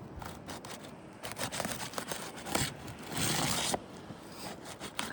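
Asphalt roof shingles being pried up to break their sealant bond: scattered crackles and gritty scraping, with a louder rough tearing noise lasting just under a second about three seconds in.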